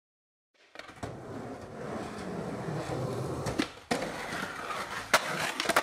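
Skateboard wheels rolling on concrete, starting just under a second in, with several sharp clacks of the board striking, the loudest about five seconds in.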